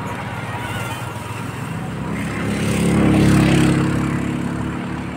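Road vehicle travelling, with steady engine and road noise; a louder engine note swells up about halfway through and fades again.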